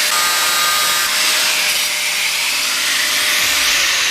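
Handheld power tool running steadily at full speed: a loud hissing rush with a steady motor whine, which starts to fall near the end as it winds down.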